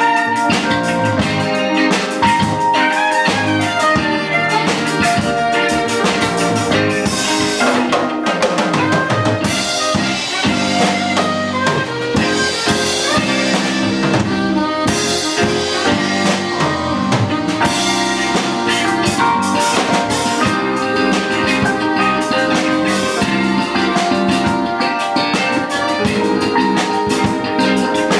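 A fusion band playing live, with drum kit, electric bass, electric guitar, keyboards and saxophone.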